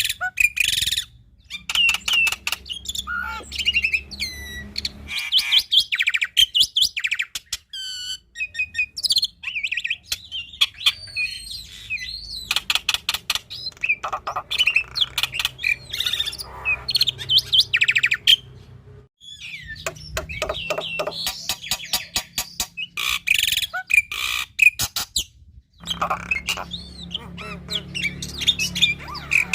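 Black-winged myna (jalak putih) singing a long, dense song: fast chattering rattles and harsh notes mixed with whistled glides and mimicked phrases of other birds, broken by brief pauses about a second in and twice later on.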